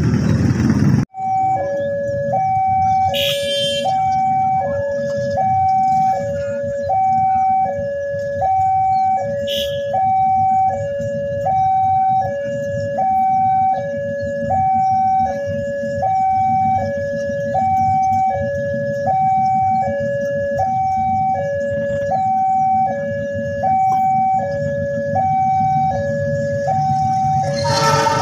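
Electronic warning alarm of a railway level crossing sounding: a loud two-note tone, high and low alternating about once a second, signalling that a train is approaching. It starts about a second in, over a low rumble of traffic.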